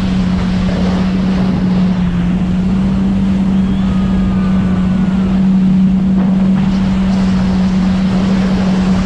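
Motorboat running flat out at a steady speed: a constant engine drone under wind buffeting the microphone and the rush of water and spray from the wake.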